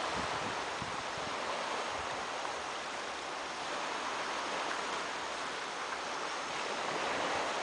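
Small waves of a calm sea washing steadily onto a sandy shore, swelling slightly near the end.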